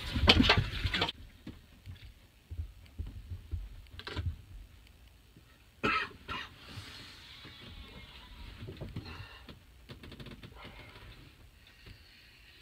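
Sheep shuffling inside a small caravan, hooves knocking on the floor now and then, after the door shuts about a second in; a single cough-like call about six seconds in.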